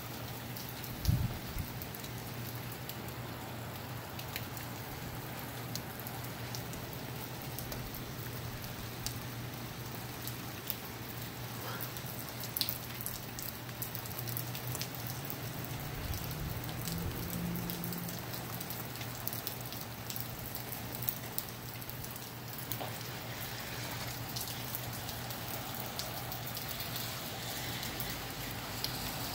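Steady rain falling, with a faint low hum underneath and a single low thump about a second in.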